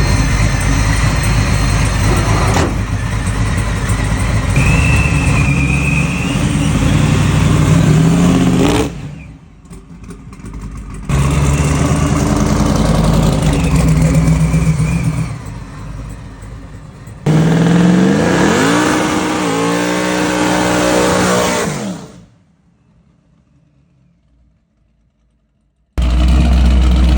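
High-horsepower Chevrolet Malibu (G-body) engine running loud and revving hard, its pitch rising as it accelerates, in several short clips that cut off abruptly. There is a gap of near silence near the end.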